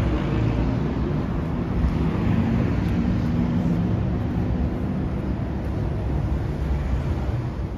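Road traffic noise: a motor vehicle's engine and tyres running steadily close by, with a low engine hum.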